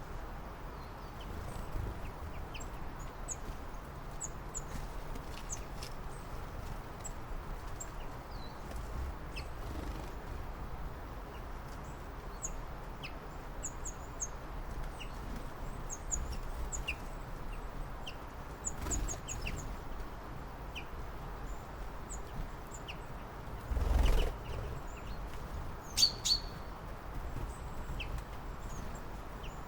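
Small songbirds chirping: many short, high chirps scattered irregularly over a steady low background noise. A louder dull thump comes late on.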